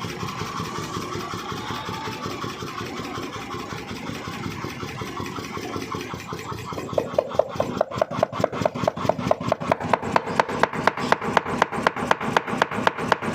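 Newly built 7.5 kg power forging hammer on a test run. Its motor runs steadily at first, then about halfway through the ram starts striking in a fast, even rhythm of about five blows a second.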